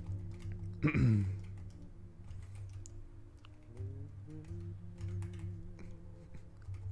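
Scattered computer-keyboard clicks, shortcut keys tapped while painting, over quiet background music with a steady low bass line. About a second in comes a brief, loud falling sweep.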